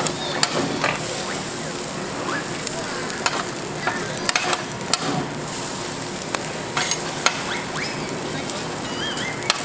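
Food sizzling on a large iron griddle plate, with frequent sharp clicks and scrapes of a metal utensil against the plate as it is stirred.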